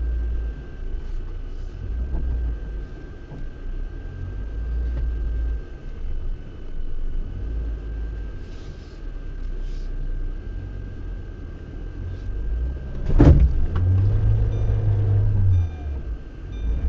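Lada Niva Bronto heard from inside the cabin crawling over a rough off-road track: an uneven low rumble of engine and drivetrain with the body jolting. One sharp loud knock about 13 seconds in.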